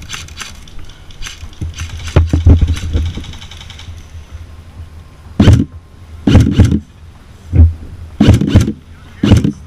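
G&G TR4-18 airsoft electric rifle firing a series of short bursts, the first about two seconds in and then roughly one a second near the end.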